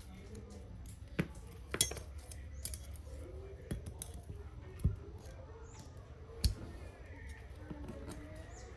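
Sharp metal clicks and clinks, spaced a second or more apart, as check valves are worked out of the brass pump head of a Kärcher HD 585 pressure washer with a small hand tool, over a low steady hum.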